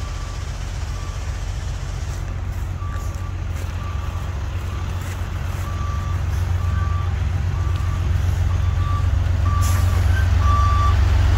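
Tow truck reversing: its backup alarm beeps steadily, about one and a half times a second, over the low rumble of a diesel truck engine, which grows louder over the last few seconds as the truck closes in.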